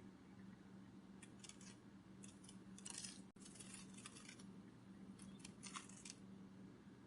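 Faint, crisp fluttering rustles in short irregular bursts, some in quick runs, like papery butterfly wings flapping, over a steady low hum.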